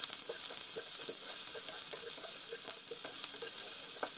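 Sliced onions and green chillies sizzling in hot oil in a non-stick pan, with a steady hiss, while a spatula stirs them, scraping and tapping against the pan several times a second.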